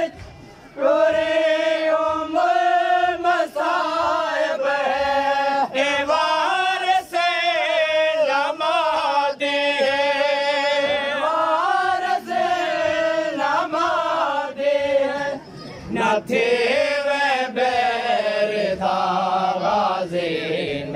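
A group of men chanting a noha (Shia mourning lament) together in long, held melodic lines, with short breaths between phrases.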